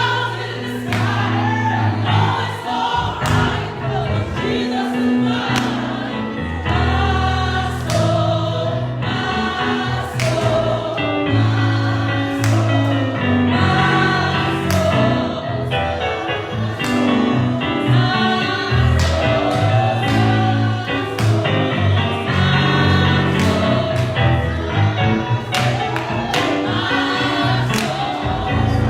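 Gospel choir singing with band accompaniment: a bass line and a steady drum beat under the voices.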